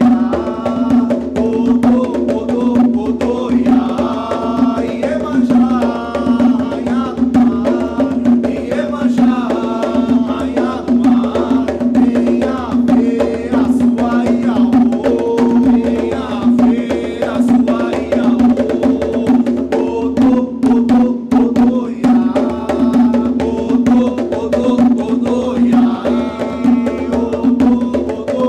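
Atabaque hand drums beaten with bare hands in a steady rhythm, with two men singing a ponto, an Umbanda chant to Iemanjá, over them.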